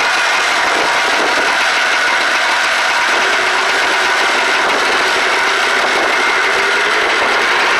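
Vintage snowmobile's two-stroke engine running steadily at a fast idle, its pitch drifting up and down a little in the middle.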